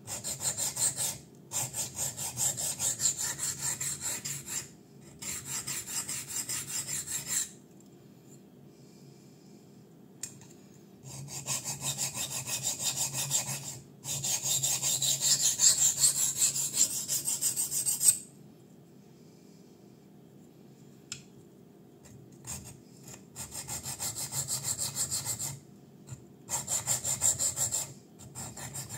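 Kizer Fighter folding knife's 154CM steel edge scraping across a DMT Extra Coarse diamond sharpening plate. Rapid back-and-forth strokes come in runs of a few seconds, with longer quiet pauses about a third of the way in and again past halfway. This is the coarse first stage, where the plate takes off a lot of metal to reset the edge.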